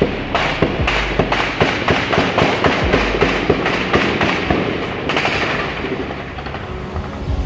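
Heavy gunfire: many shots in rapid succession, several a second, thinning out after about five seconds.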